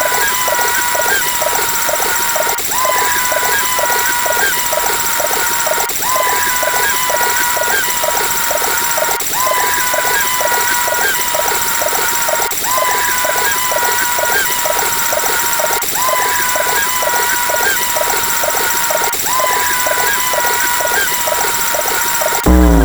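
A synthetic sound effect loops over and over, repeating about every three seconds: a quick run of pulses under a steady high tone. Right at the end a different effect cuts in, with a falling glide in pitch.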